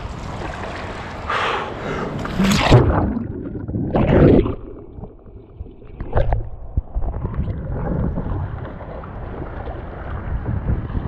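Kayak paddle strokes splashing through river water, with about four loud splashes in the first half and then rippling current under the hull. Wind rumble runs low on the camera microphone throughout.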